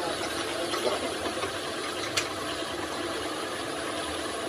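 Metal lathe running, its chuck spinning with a workpiece, making a steady machine noise with one sharp click about two seconds in.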